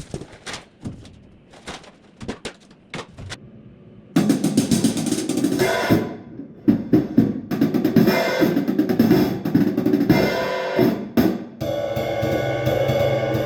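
A drum kit being played. It starts with scattered single hits, then goes into busier playing with snare, hi-hat and cymbals from about four seconds in. Near the end, steady pitched music with bass notes joins.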